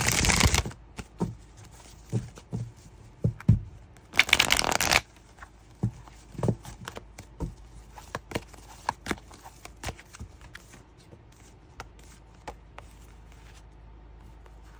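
A tarot deck being shuffled by hand: a burst of card riffling at the start and another about four seconds in, followed by a run of light card clicks and flicks as cards are handled and laid down, thinning out toward the end.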